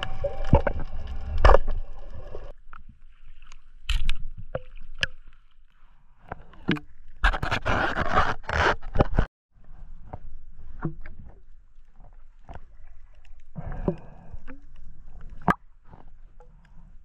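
Water heard through a camera held underwater and at the surface: a steady hum for the first couple of seconds, then scattered sharp clicks and knocks and two longer rushes of bubbling, splashing water noise.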